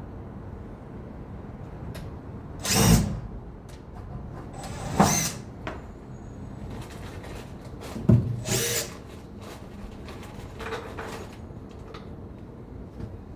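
Power drill running in short bursts: three loud ones of about half a second each and a weaker one near the end, over steady site noise.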